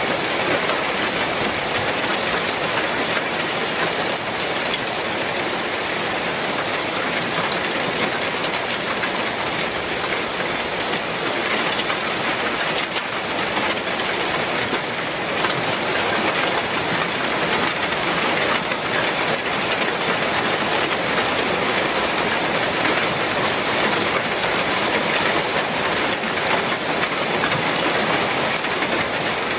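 Heavy rain falling on a clay-tile roof, a dense steady hiss without a break.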